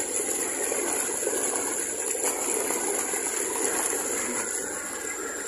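Massey Ferguson tractor's diesel engine running steadily, driving an old tubewell pump through a flat belt.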